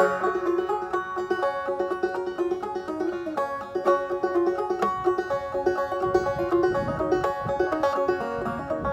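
Five-string banjo played clawhammer style, an old-time fiddle tune with a steady rhythm of struck notes over a ringing drone string, starting sharply at the outset. The banjo is tuned a half step below standard G tuning, to f# C# f# a# c#.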